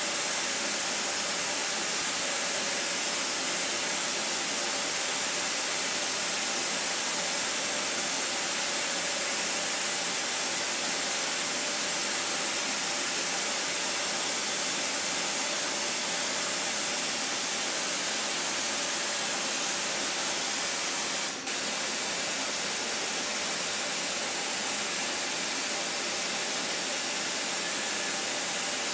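High-speed CNC milling of tough-pitch copper with a small DLC-coated carbide ball end mill: a steady hiss with a faint steady tone beneath it. The level dips briefly about 21 seconds in, where a second cut with a different carbide end mill begins.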